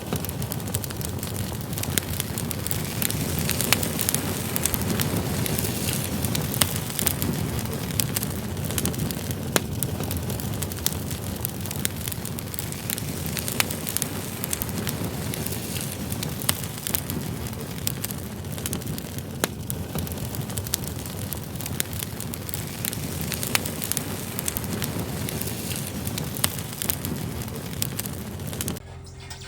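Wood fire burning in a homemade tin rocket stove: a steady rushing sound with frequent sharp crackles of burning firewood, stopping abruptly near the end.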